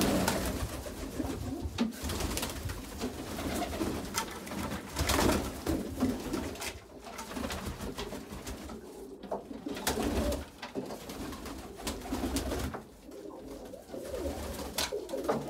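Domestic pigeons cooing in a loft, with scattered clicks, knocks and rustling.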